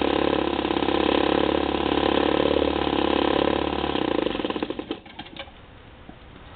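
Toro S200 snowblower's small two-stroke engine running steadily, then winding down and stopping about four and a half seconds in. It runs on a recently rebuilt carburetor that the owner says still needs a little adjustment to run perfectly.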